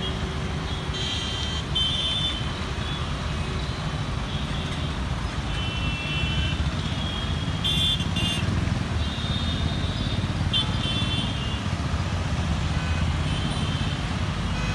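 Busy city junction traffic: a steady rumble of motorcycle, scooter, car and truck engines, with short horn toots sounding again and again throughout.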